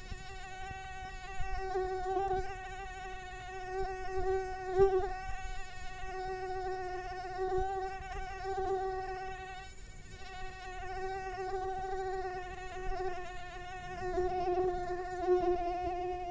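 Mosquito in flight, its wingbeats making a continuous thin, high whine that wavers slightly in pitch and swells and fades in loudness several times.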